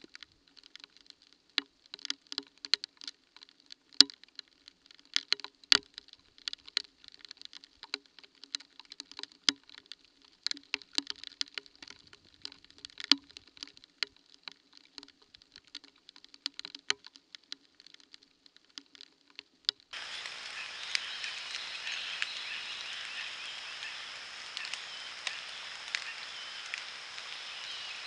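Irregular pattering taps and sharp clicks over a faint low hum. About twenty seconds in, this switches abruptly to a steady hiss.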